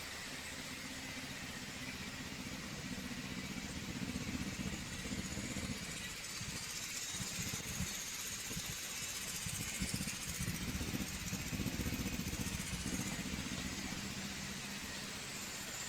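Honda CBR250RR parallel-twin engine running through a Yoshimura aftermarket silencer, idling with the level rising and wavering through the middle as the throttle is worked a little, then settling back.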